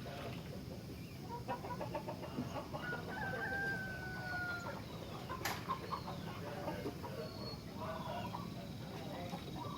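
A rooster crowing once, a long, slightly falling note, among scattered short bird chirps and clucks, with one sharp click about halfway through.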